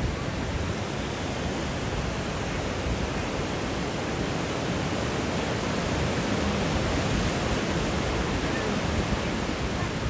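Ocean surf breaking on a beach, heard as a steady rushing noise.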